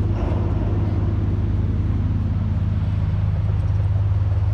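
A steady low droning hum with several pitched layers, engine-like, holding at an even level.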